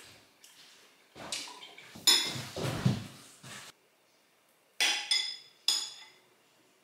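Metal spoon clinking and scraping against a ceramic soup bowl. Sharp ringing clinks come a few at a time: the loudest about two seconds in, with a short scrape after it, and three more close together near the end.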